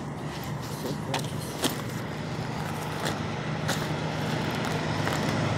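Road traffic: a car's engine and tyre noise on the street, growing steadily louder as it approaches, with a few light clicks.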